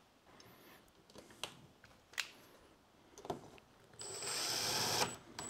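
A few light clicks and taps, then a cordless drill-driver runs for about a second, driving a screw into a brass threaded insert in a plastic kayak hull.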